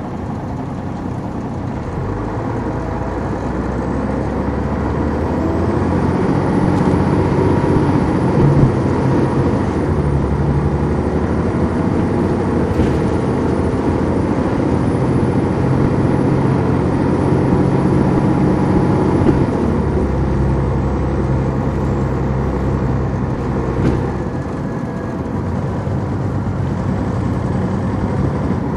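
Detroit Diesel Series 60 inline-six diesel of an MCI D4000 coach, heard from inside the bus as it pulls away. The drone builds over the first several seconds, holds steady with a faint high whine above it, and eases off about two-thirds of the way in.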